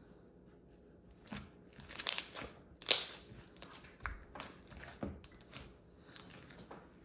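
Gray glitter slime pressed and kneaded by hand, giving irregular crackling pops, the loudest about two and three seconds in.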